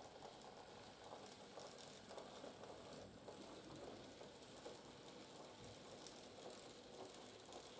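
Faint running sound of a 009 scale model train on its narrow-gauge track: small irregular clicks and light rattling from the passing tipper wagons.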